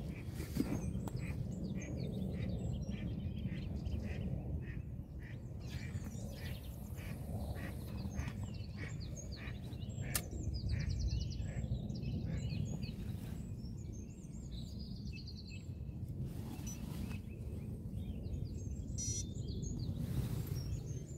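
Ducks quacking in a quick run of repeated calls through the first half, with smaller birds chirping, over a steady low rumble.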